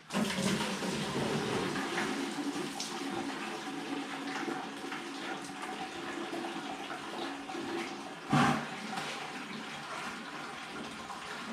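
Coolant draining from a race car's engine and radiator through a hose into a bucket: a steady splashing pour that starts suddenly and keeps going. A single sharp knock comes about eight seconds in.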